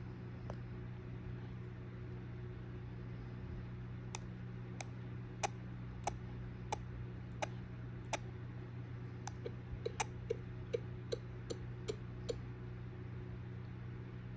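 A person clicking the tongue, sharp clicks starting about four seconds in at roughly one every two-thirds of a second, then a quicker, softer run of clicks. A steady low hum lies underneath.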